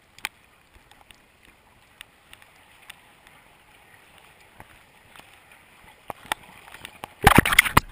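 Muffled underwater sound through a GoPro Hero HD's waterproof housing: a faint hiss with scattered small clicks. Near the end comes a sudden loud rush of splashing water as the camera comes up through the surface.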